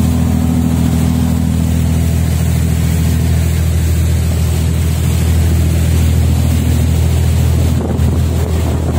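Ferry bumboat's engine running steadily while under way, a low, even drone, with wind buffeting the microphone.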